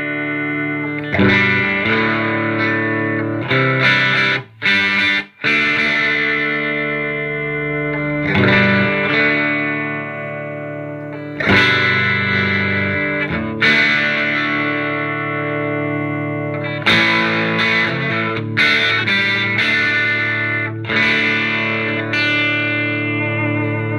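Electric guitar chords from a Gibson Les Paul with Seymour Duncan pickups, played through a hand-wired Marshall JTM 45 Plexi clone head with KT66 power tubes and a 1x12 cabinet. Chords are struck and left to ring every few seconds, with two brief stops about four and a half and five and a half seconds in. The amp's normal channel volume is being turned up, which makes the tone bassier.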